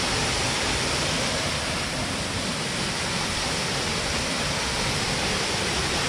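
A waterfall about 7 metres high pouring through a hole in the rock into a plunge pool: a steady rush of falling water.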